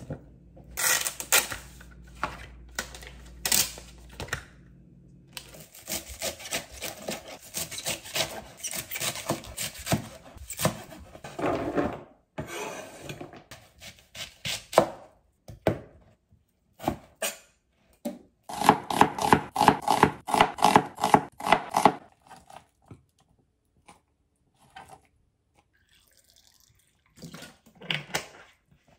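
Kitchen knife cutting an onion on a plastic cutting board: a string of slicing strokes, then a fast, even run of chops about two-thirds of the way through. At the start, a few knocks of small metal cans being packed into a pouch.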